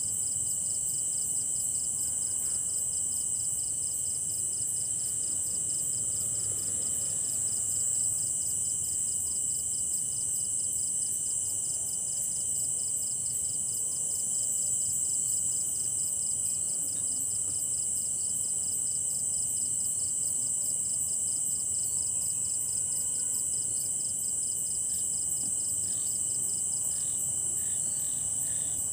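Chorus of crickets and other night insects: a steady high-pitched trill, with other calls pulsing rapidly and evenly alongside it and a fainter steady tone lower down.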